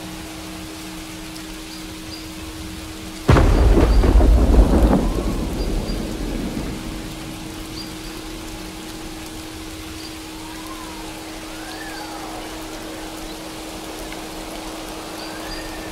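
Steady rain with a sudden thunderclap about three seconds in, rumbling low and fading away over the next few seconds. A steady low tone hums underneath, with faint rising-and-falling tones later on.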